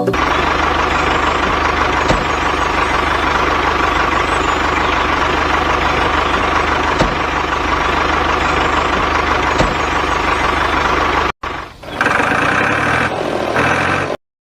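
Engine running steadily at idle with a constant low hum. It cuts out abruptly about eleven seconds in, and a couple of seconds of a different sound with stepped tones follow before everything stops.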